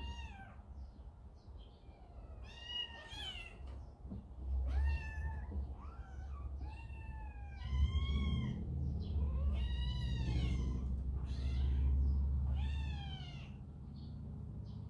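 Kittens meowing over and over, a dozen or so high, short meows that rise and fall, about one a second. A low rumble runs underneath and swells through the middle.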